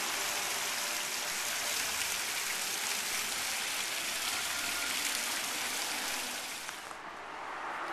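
Water pouring and splashing down a stacked-stone fountain: a steady hiss that drops away sharply near the end.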